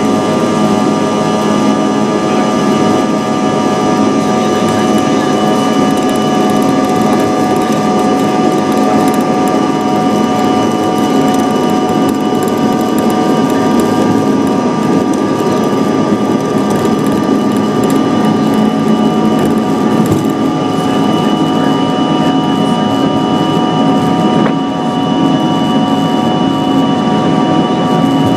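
CRJ200's twin rear-mounted GE CF34 turbofans running at takeoff or climb power: a loud, steady rush with several steady whining tones over it.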